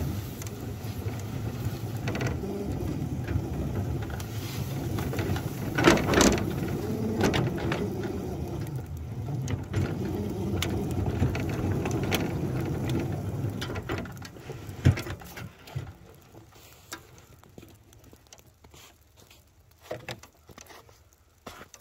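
Miniature 7½-inch-gauge locomotive running along the track, its drive giving a steady mechanical clatter with scattered clicks and knocks as the plow pushes heavy, wet snow. It stops about fifteen seconds in, leaving quieter rain patter and a few clicks.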